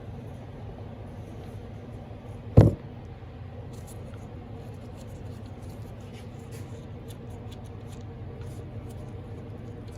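Tools being handled under a car as the oil drain plug is taken out: light clicks and ticks, with one sharp knock about two and a half seconds in, over a steady low hum.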